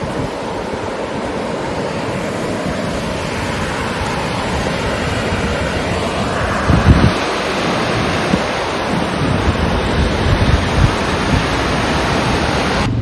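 Old Faithful geyser erupting: a steady rushing hiss of water and steam that grows slightly louder, with wind buffeting the microphone in low thumps from about halfway through.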